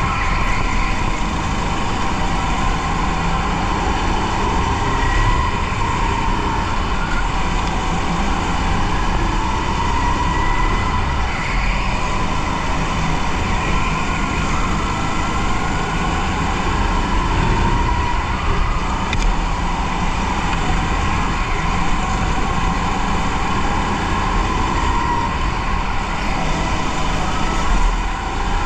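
Racing kart driven hard around an indoor track, heard from onboard: a steady low rumble with a high pitched note that rises and falls with speed through the corners and straights.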